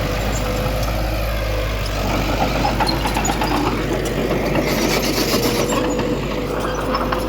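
Heavy diesel earthmoving machinery running steadily under a constant low hum and a steady whine, with a rush of brighter noise lasting about a second, starting about four and a half seconds in.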